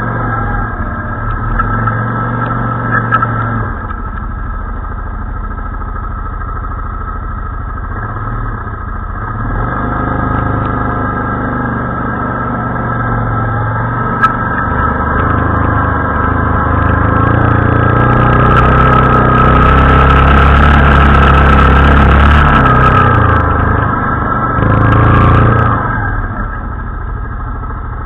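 ATV (quad bike) engine running under way at varying throttle, picked up close from the machine's front rack; it swells to its loudest for several seconds past the middle and rises again briefly near the end.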